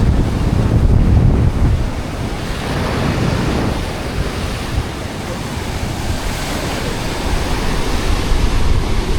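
Strong wind buffeting the microphone over the wash of ocean surf. The low rumble is heaviest in the first couple of seconds, then eases.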